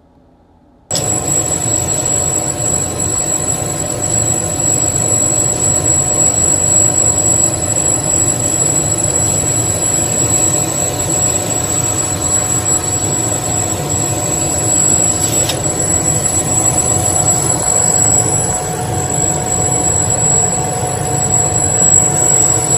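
CNC cutting machine running as it cuts and engraves numbered wooden tags: a steady, loud mechanical whir with a thin high whine over it. It starts abruptly about a second in.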